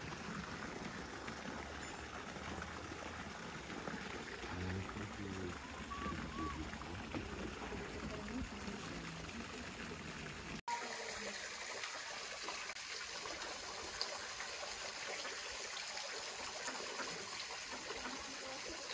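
Steady trickling of running water, an even hiss with a short break about ten and a half seconds in, after which it goes on with less low rumble.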